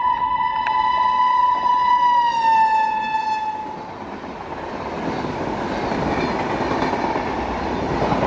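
Electric locomotive's horn sounding one long blast that drops slightly in pitch as the locomotive passes at speed, then the steady noise of its coaches running by on the rails.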